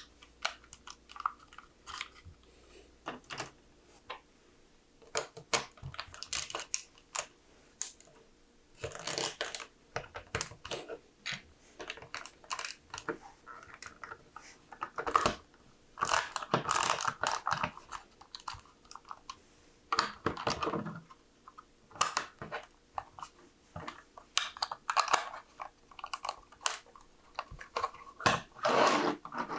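LEGO plastic bricks being handled and snapped together: scattered sharp clicks and short clattering bursts of pieces, at an uneven pace.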